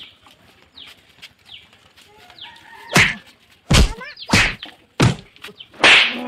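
A quick series of about five sharp slaps, hand on face, in the second half. Before them, chickens cluck faintly in the background.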